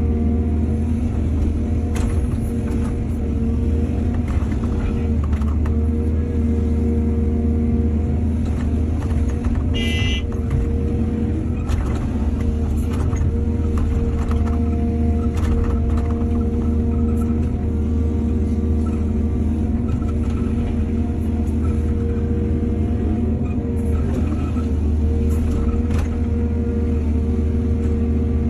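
Heavy diesel engine of an excavator running steadily, with scattered knocks and clunks throughout. A brief high-pitched tone sounds about ten seconds in.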